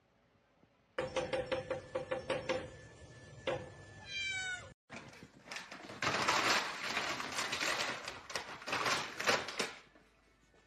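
A cat meowing, with a short rising call about four seconds in, amid knocks and a long stretch of noisy clatter.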